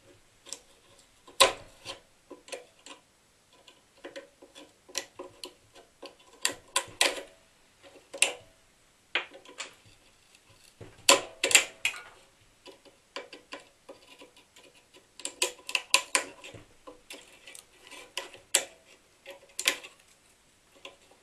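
Small screwdriver prying and scraping at the cut-open plastic relay cases on an inverter circuit board: irregular clicks, taps and short scrapes. The relay covers stay stuck, which the repairer thinks is because they are glued down.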